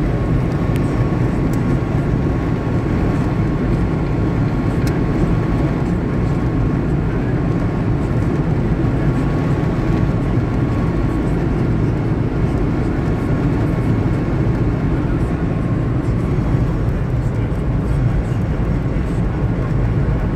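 Steady road and engine noise of a car driving on a motorway, heard from inside the cabin, with a faint steady high tone running through it.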